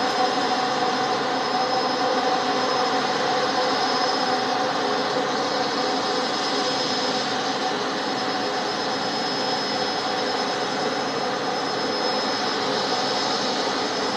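Jet engines of a C919 airliner (CFM LEAP-1C turbofans) running at low taxi power. It is a steady rushing noise with an even high whine and a lower hum over it.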